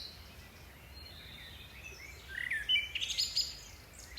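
Birds chirping and calling: a few scattered chirps, then a busier run of whistled notes and quick repeated chirps between about two and three and a half seconds in, over a faint steady low background hum.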